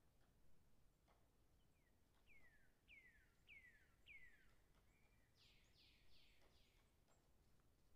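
Near silence with a faint bird singing in the background: four quick falling whistles from about two seconds in, then a run of four buzzier notes near six seconds.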